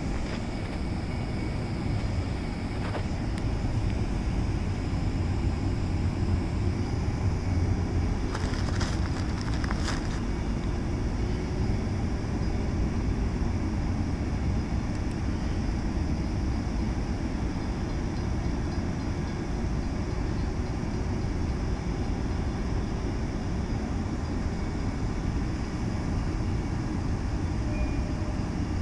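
Kawasaki M9 electric railcars standing at a station platform, giving a steady low hum and rumble. A few brief clicks come about eight to ten seconds in.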